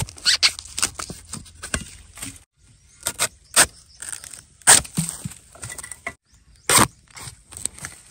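A bamboo-handled steel digging spade chopping into the base of a wild bamboo shoot and the roots and soil around it, to cut the shoot free from the clump. It lands as an irregular series of sharp chops, the loudest about five and seven seconds in.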